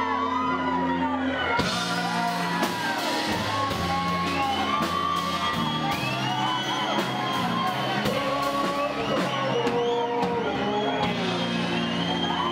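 Grunge rock band playing, with a singer's voice over guitars and bass and steady drum and cymbal hits.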